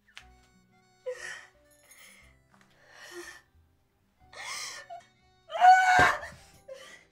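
A woman crying: sobbing, gasping breaths about once a second that build to a loud wailing sob near the end.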